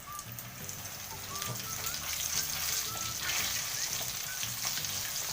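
Battered chicken feet sizzling and crackling in hot cooking oil, the sizzle swelling about a second or two in as the pieces go into the pan.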